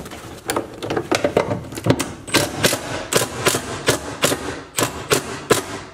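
Makita cordless impact driver on a long T30 bit, run in short trigger blips of about three a second to snug a bolt lightly into an aluminum bracket without stripping its threads.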